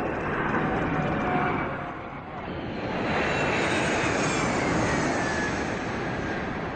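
Jet airliner's turbofan engines at high power, a loud steady jet noise that dips briefly about two seconds in, then swells again with a whine falling in pitch as the aircraft passes: a Boeing 777-300ER on GE90-115B engines taking off.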